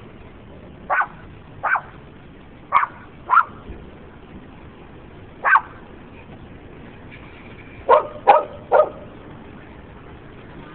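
Dogs barking: about eight short barks at irregular intervals, the last three in quick succession near the end.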